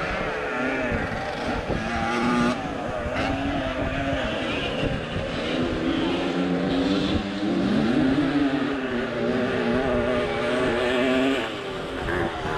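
A small engine running, its pitch wavering and drifting up and down as the revs change.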